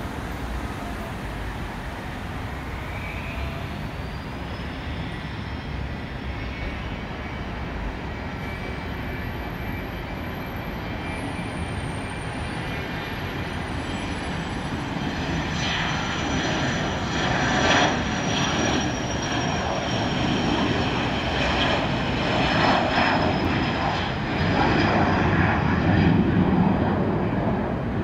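Twin Garrett TFE731 turbofans of a Learjet 35A at takeoff power during the takeoff roll: a thin high whine over a steady rushing jet noise. The noise grows louder through the second half as the jet accelerates down the runway.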